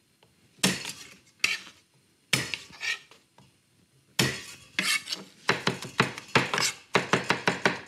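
Chef's knife on a wooden cutting board working garlic cloves: a few separate knocks as the cloves are smashed, then from about four seconds in a fast run of chopping strokes, about five a second.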